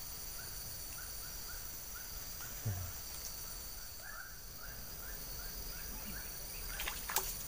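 Outdoor wetland ambience: insects keep up a steady high-pitched drone while a short chirping call repeats about three times a second. A small dull thud comes a little before halfway, and there are a few clicks near the end.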